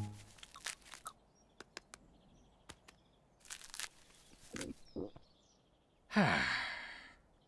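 Cartoon sound track: a few small clicks and short rustles, then about six seconds in a long breathy sigh falling in pitch and fading out.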